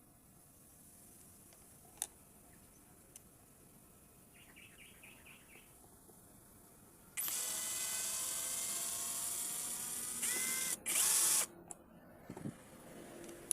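Cordless electric drill-driver: a few light clicks and a short run of quick ticks, then the motor whirs for about three seconds, its pitch sliding briefly, and runs again in a louder burst of about a second, backing screws out of the mini chainsaw's plastic housing.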